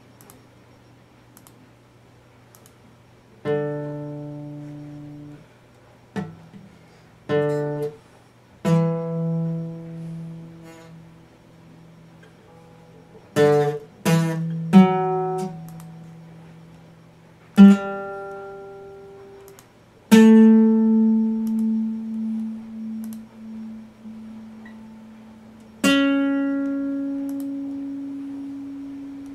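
Epiphone acoustic guitar played haltingly: about ten single strums and picked notes, each left to ring out and fade, with pauses between, as a beginner works out a D major chord.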